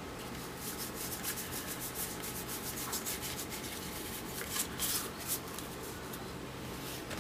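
Baseball cards rubbing and sliding against each other as a stack is thumbed through card by card: a soft, continuous papery shuffle made of many small flicks, a few of them louder about five seconds in.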